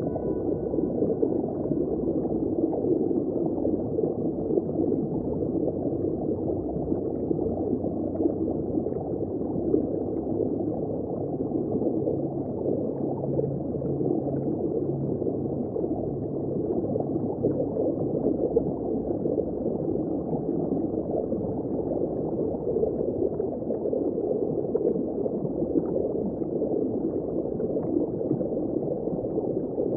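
Underwater ambience: a steady, muffled rush and churn of water as heard below the surface, with no highs. A few faint steady high tones fade out in the first second or two.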